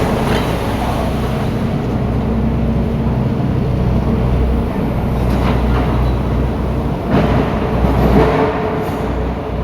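Heavy diesel machinery running steadily with a low hum, with a few brief louder noisy surges near the end.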